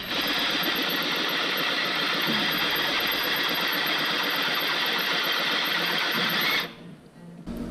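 Power drill running steadily under load, boring into the engine block; it stops abruptly near the end.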